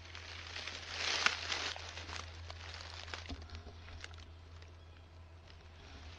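Rustling and crackling in dry leaves on the forest floor, with small twig clicks, loudest about a second in and then dying down.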